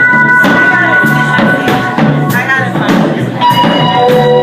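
Band music with a steady drum beat, about two beats a second, under held notes and a bass line.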